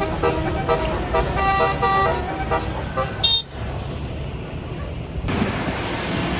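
Tour bus's Basuri musical 'telolet' horn playing a tune of stepped, held notes, cutting off about three seconds in; traffic noise rises near the end.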